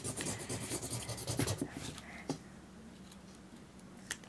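Felt-tip marker scribbling quickly on paper for about two seconds, then stopping, followed by a couple of light taps.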